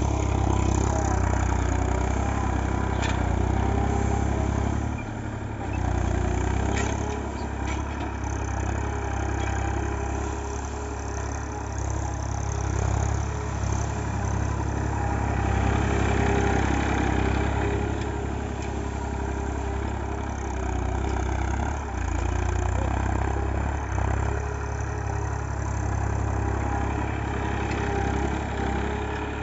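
Diesel tractor engine running steadily, rising and falling a little in level, as the tractor is driven over spread paddy straw to thresh the rice.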